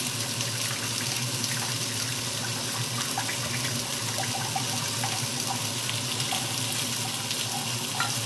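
Chicken pieces browning in a frying pan, sizzling gently: a steady hiss with small scattered crackles.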